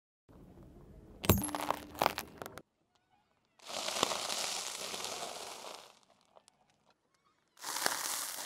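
Small glass vials cracking and breaking under a car tyre, with shards clinking and one sharp crack about a second in. After a short pause, a packet of rusk in crinkly plastic and slices of toasted bread crushed under the tyre: a steady crackling crunch of about two seconds, and another starting near the end.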